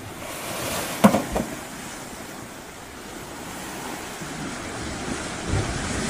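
Ocean waves washing in over sand and rocks, the surf swelling and easing, with two sharp knocks about a second in.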